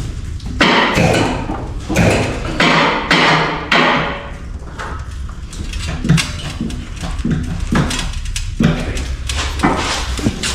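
Hammer blows on metal. A few hard strikes come in the first four seconds, each ringing briefly, then lighter taps follow about twice a second.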